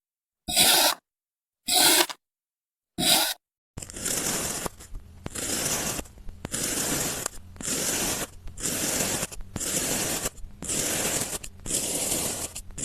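Scraping and tearing noises from craft materials being handled: a few short separate strokes, then a steady run of rhythmic scraping strokes about once a second.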